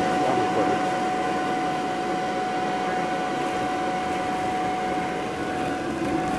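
Electric blower of an inflatable bounce house running steadily: a constant rushing whir with a fixed whine.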